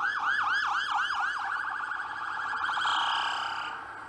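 Police siren in a fast yelp, about four falling sweeps a second, which runs together into a steadier tone after about a second and a half and fades near the end.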